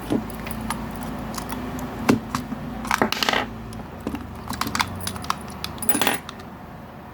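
Scattered clicks and rattles of small hard objects being handled, with denser rattles about three seconds in and again about six seconds in.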